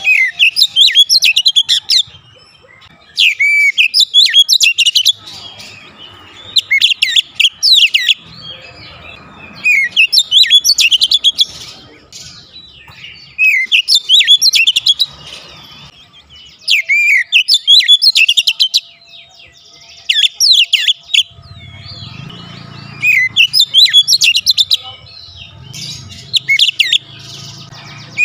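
Oriental magpie-robin singing loudly in full song: varied, rapid whistled phrases of one to two seconds, each followed by a short pause, about nine phrases in a row.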